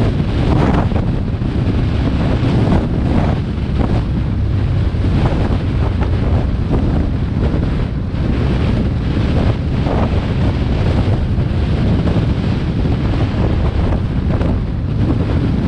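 Heavy, steady wind buffeting on the microphone of a motorcycle riding a gravel track, with the bike's engine and its tyres on loose stones running beneath it.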